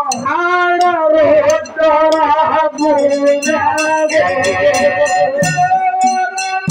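A woman singing a Kannada dollina pada folk song into a microphone, in a sustained, sliding melodic line. About three seconds in, sharp percussion strikes join her and keep a steady beat.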